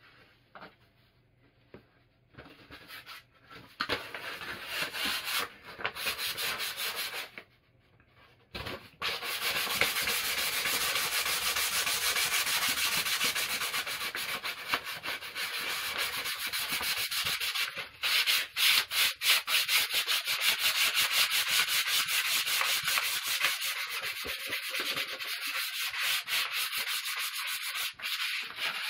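Sandpaper rubbing by hand along a new wooden axe handle. It comes in short bursts a few seconds in, then runs steadily from about nine seconds in, turning into fast, even back-and-forth strokes in the second half.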